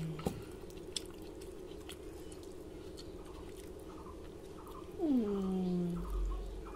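A woman's drawn-out vocal sound that falls sharply in pitch, about five seconds in and lasting about a second, over a steady low hum.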